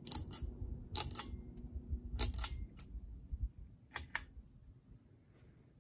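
Cheap Aloha Breeze ceiling fan spinning down after being switched off: a faint motor hum fades out about two seconds in. Over it come sharp double clicks about every one to two seconds, more widely spaced toward the end.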